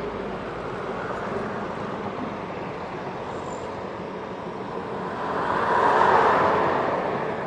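A Honda CB150R's single-cylinder engine running steadily through a 3Tech Spartan GP racing exhaust, amid road traffic. About six seconds in, traffic noise swells up and fades again.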